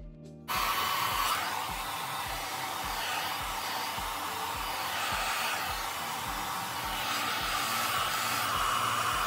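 Handheld hair dryer switched on about half a second in, then blowing steadily. Its airflow rises and falls a little as it is moved along the hairline.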